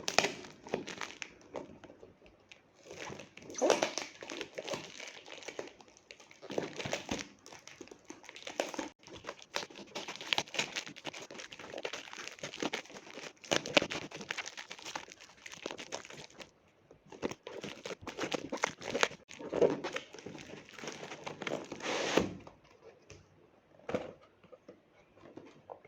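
Packaging crinkling and tearing as an eye test chart is unwrapped, in irregular rustles with several louder bursts; it stops a few seconds before the end, leaving only a couple of faint taps.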